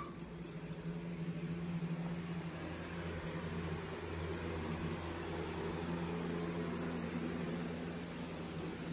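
Steady hum and air rush of an electric box fan running, a little louder from about a second in.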